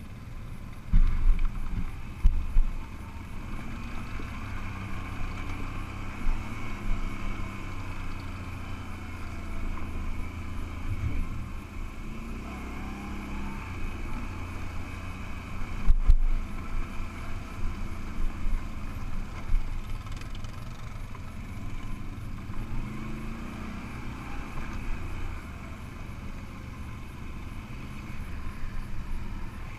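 Can-Am ATV engine running while riding a rough dirt trail, its pitch rising and falling with the throttle. A few heavy thumps come about a second in, again shortly after, and once more about halfway through.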